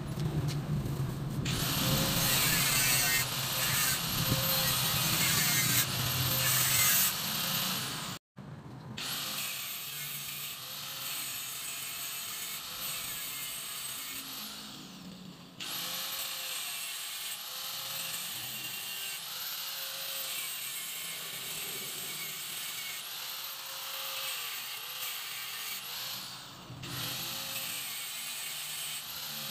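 A handheld power tool running in long stretches while working on a motorcycle frame, with its pitch repeatedly dipping and recovering as it bears down. It is loudest during the first eight seconds, stops briefly, then carries on steadier and quieter.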